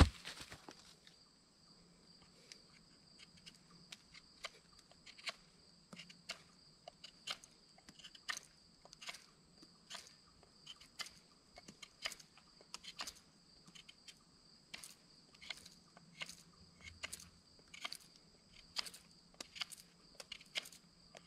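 Knife carving a wooden stick in short strokes, a sharp scrape-click roughly every half second to second, after a single sharp knock at the very start. Under it, insects drone steadily on two high tones.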